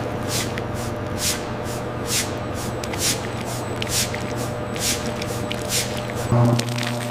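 Bread-making line machinery: a steady low hum with a short spray-like hiss of air repeating a little more than once a second. About six seconds in, the hum changes pitch with a louder low thud.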